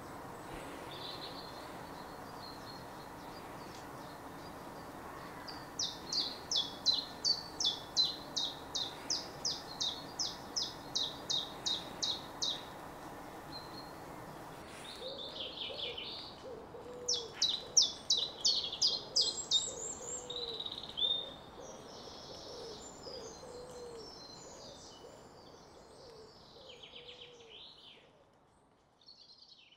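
Chiffchaff singing its 'chiff-chaff' song: a run of about eighteen high, evenly paced notes at nearly three a second, then after a short pause another burst of the same notes among other birds' chirping. Underneath the second half, a lower cooing call from another bird repeats about once a second.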